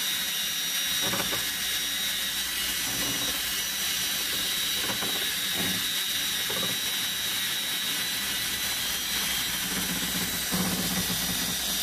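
Handheld electric drill with a paddle mixer running steadily, stirring pigmented epoxy resin in a plastic mixing cup, with a steady high motor whine.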